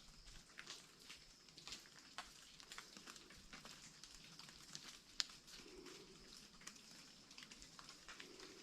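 Faint, scattered raindrops ticking irregularly, a few a second, with one sharper tick about five seconds in.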